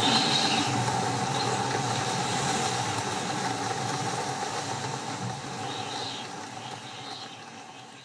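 Strong wind blowing in a steady rush with a low rumble, slowly fading out over the last few seconds.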